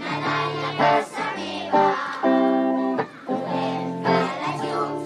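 Guitar strumming chords, each one ringing on until the next, with a short break about three seconds in.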